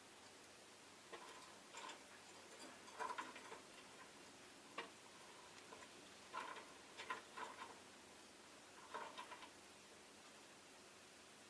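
Faint, irregular small ticks and taps, about a dozen, from a rosy-faced lovebird moving about, over near silence.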